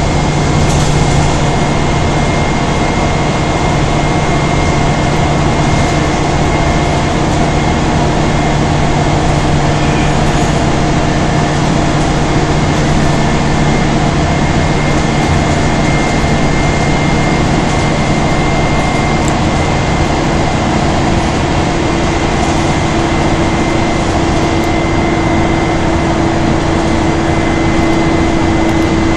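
Cabin noise inside a city bus cruising at steady speed: an even rumble of engine and road noise with a steady engine hum and a thin high whine. About two-thirds of the way in, the engine note shifts and one hum grows stronger.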